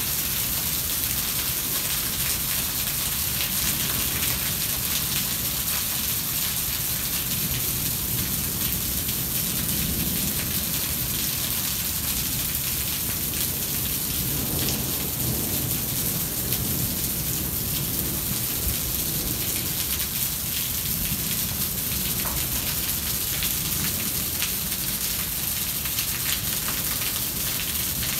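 Rain falling steadily in a thunderstorm, with low rumbles of thunder swelling up a few times.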